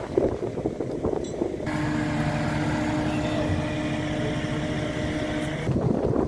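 Wind buffeting the microphone, then, from about two seconds in until shortly before the end, the steady hum of a truck-mounted crane's engine running as it hoists a sailboat on slings. The gusty wind noise returns near the end.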